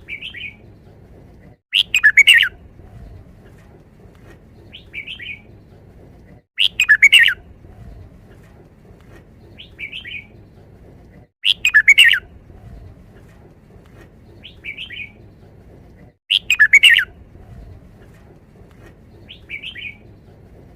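Red-whiskered bulbul singing its short song phrase over and over, one loud phrase about every five seconds, with a shorter, fainter call between each. A low steady background hum runs underneath.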